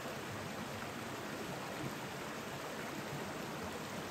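A brook running beneath a snowy footbridge: a steady, even rush of flowing water.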